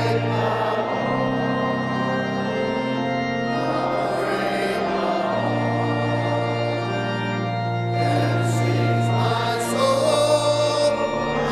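Church organ playing slow, held chords with a steady bass note, the chords changing every few seconds.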